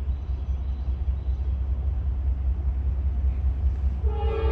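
Low, steady rumble from an approaching train, then about four seconds in the locomotive's air horn starts blowing, several tones sounding together as one loud held chord.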